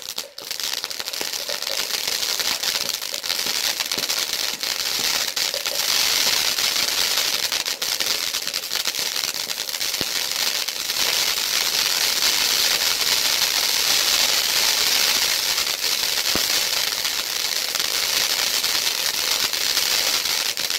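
A Crackling King flower pot (anar) firework fountain burning: a steady rushing hiss of sparks, thick with rapid fine crackles. It builds within the first second and keeps up without a break.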